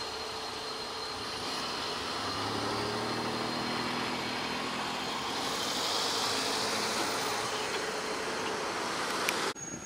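Road cars driving over a railroad grade crossing, engine and tyre noise passing one after another. It cuts off abruptly near the end.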